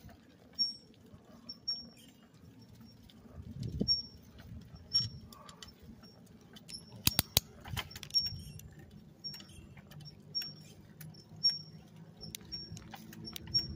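A bicycle squeaking as it is ridden: a short, high chirp at the same pitch about once a second, over a low rumble of tyres on asphalt. A few sharp clicks come together a little past halfway.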